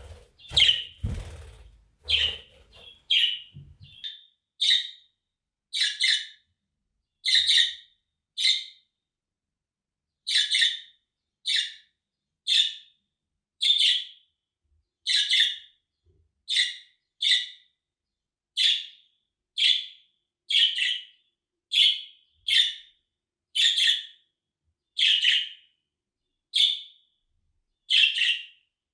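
Budgerigar giving short, high contact calls over and over, roughly one a second with a brief pause partway through. A few low rustles and thumps sound in the first few seconds.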